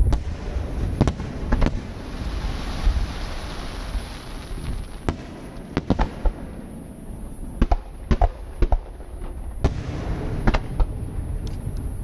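Aerial fireworks shells bursting: about a dozen sharp booms at irregular intervals, with a spell of dense hissing crackle about two to four seconds in.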